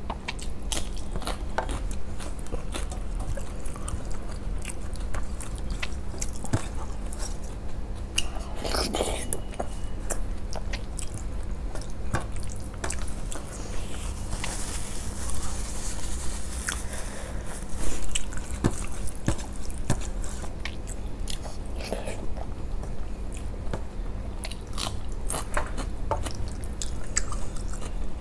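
Close-up chewing of rice eaten by hand, with wet lip smacks and mouth clicks, and fingers squishing and mixing rice on a steel plate.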